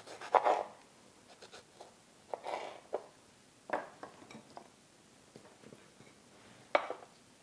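A serrated kitchen knife slicing through tomatoes on a plastic cutting board: a few short scrapes and taps, then a single sharper knock near the end.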